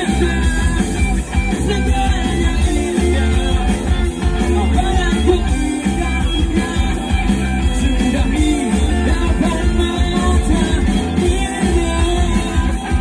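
Live rock band playing a song, with a lead singer over the band.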